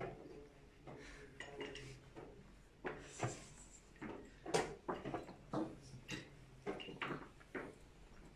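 Wooden chess pieces being set down on boards and chess clock buttons being pressed during fast blitz play: a run of a dozen or so short, irregular knocks and clicks.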